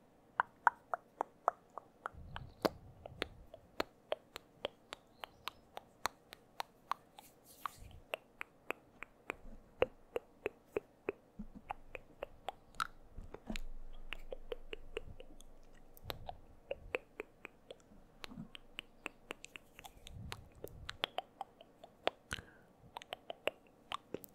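Close-miked wet mouth sounds: rapid tongue and lip clicks, several a second, right at the microphone, with a few soft breathy swells between them.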